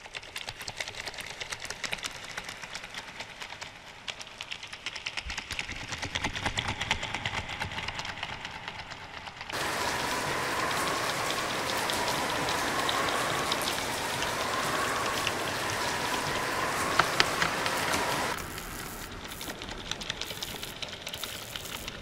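Rain sound effect: a dense, steady patter of rain. For about eight seconds in the middle it gets louder, with a faint wavering whistle over it.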